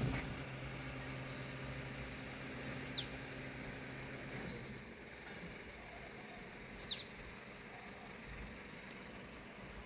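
A bird calling twice, each call a short high chirp sweeping downward, about three and seven seconds in. Under it a steady low hum runs and stops about halfway through.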